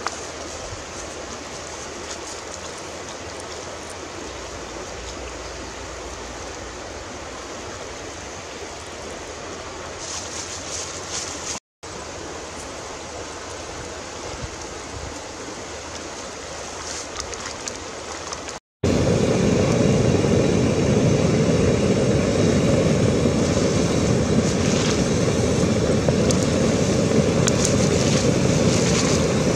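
A pot of fish soup boiling steadily, with a constant bubbling hiss. After two brief dropouts it grows markedly louder and deeper for the last third.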